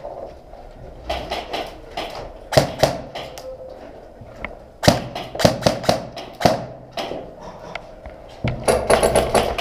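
Airsoft guns firing: irregular single sharp clicks and cracks, several in quick succession just past the middle, and a dense rapid burst near the end, echoing in a small room.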